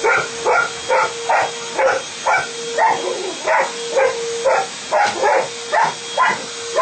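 Labrador barking repeatedly at a vacuum cleaner, short barks about two a second without a break, over a steady hum.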